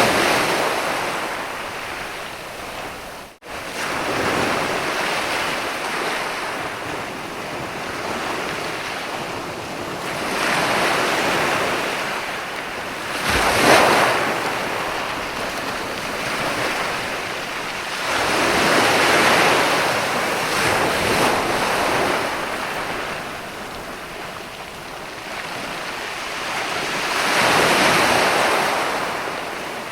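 Ocean waves breaking and washing up a sandy beach, the surf swelling and receding every several seconds, loudest about 14 seconds in. The sound cuts out for an instant about 3 seconds in.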